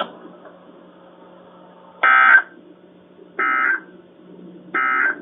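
Three short NOAA Weather Radio SAME data bursts, the End of Message (EOM) code, each under half a second and about 1.4 s apart, over a faint steady radio hiss and hum. They signal that the emergency alert broadcast has ended.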